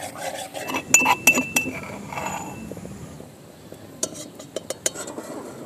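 Metal ladle clinking and scraping against a large metal wok during stirring. There is a quick run of sharp clinks with a brief metallic ring about a second in, and another run of clinks about four seconds in.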